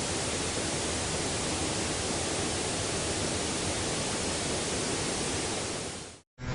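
Steady, even rushing hiss like static or a distant waterfall, a 'space sound' standing for a trans-Neptunian object. It fades out near the end, a moment of silence follows, and a louder, deeper rumbling sound starts right at the close.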